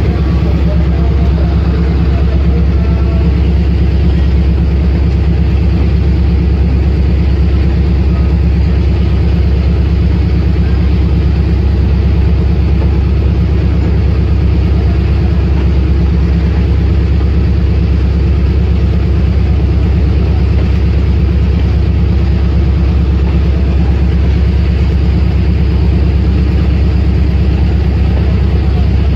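Pakistan Railways passenger train rolling past at low speed, a steady heavy low rumble.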